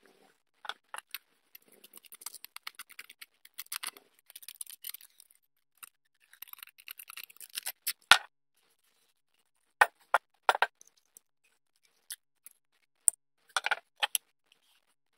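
Small metal fittings, nuts and screws handled and clinked together by hand on a wooden bench: scattered clicks and short rattles, with one sharp click about eight seconds in.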